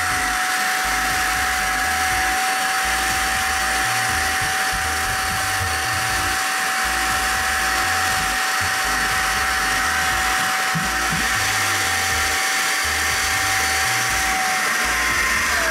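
Heated rinser spot carpet cleaner running: its suction motor gives a steady high whine as the hand nozzle sprays water into a shag rug and sucks it back up. Near the end the motor is switched off and the whine starts to fall in pitch.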